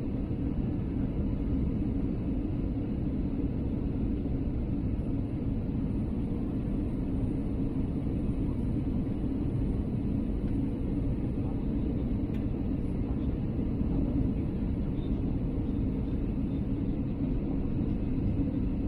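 Steady cabin rumble of an Airbus A320neo (A320-271N) on final approach, heard from a window seat beside its Pratt & Whitney PW1100G geared turbofan: deep engine and airflow noise holding an even level throughout, with no touchdown thump.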